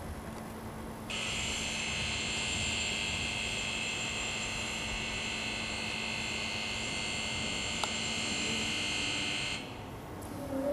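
A steady, high-pitched electric buzz like a warning buzzer starts abruptly about a second in, holds for roughly eight seconds and cuts off, over a faint steady machinery hum.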